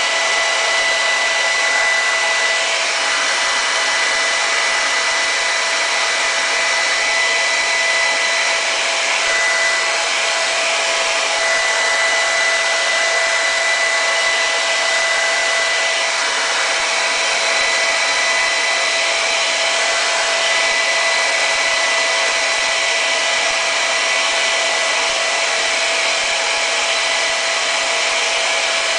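Handheld hair dryer running steadily on high at close range, a rush of air with a steady whine from its motor, blowing hot air onto a motorcycle fairing to soften a sticker's adhesive.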